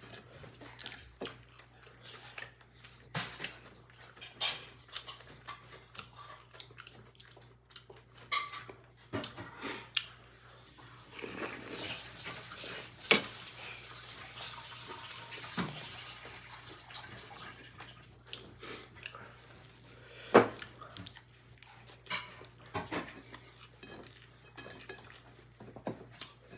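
Spoon and tableware clinking and tapping on ceramic plates and bowls as people eat, in scattered small knocks with one sharper knock later on. Around the middle a few seconds of paper napkin rustling.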